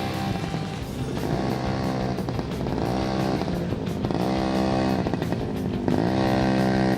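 Small two-stroke engine of a Yamaha PW50 youth dirt bike, revving up and falling back again and again as it rides around, its pitch rising and dropping every second or two.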